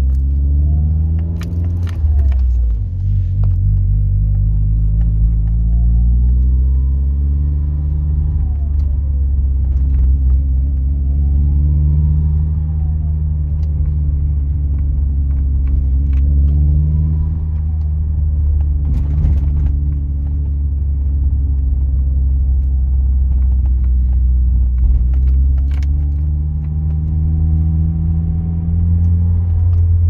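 Vauxhall Z20LET 2.0 turbo four-cylinder engine heard from inside the car while driving, revs rising and falling through the gears. A slight whistle rises and falls with each press of the throttle.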